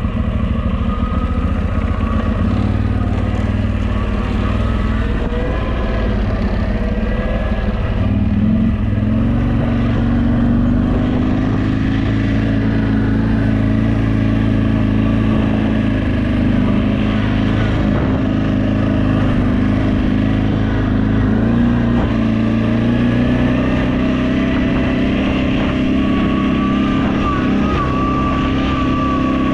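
CFMoto X8 EFI ATV's V-twin engine running steadily while riding, its pitch rising about eight seconds in and then holding.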